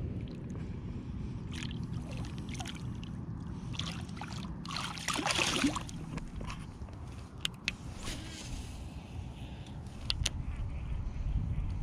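Wind rumbling on the microphone, with water sloshing and a louder splash about five seconds in, plus a few small clicks.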